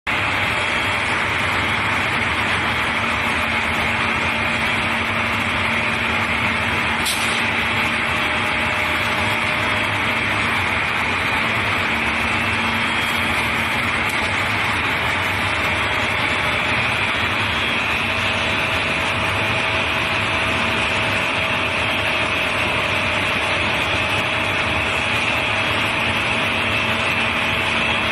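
Glass CNC processing machinery running: a steady whirring hiss over a low motor hum, with a faint short click about seven seconds in.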